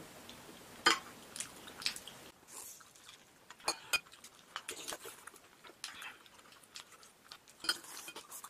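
Eating sounds: metal spoons clinking against ceramic bowls of porridge, sips from the spoon, and biting and chewing into a pan-fried leek pocket, in scattered short clicks and bursts.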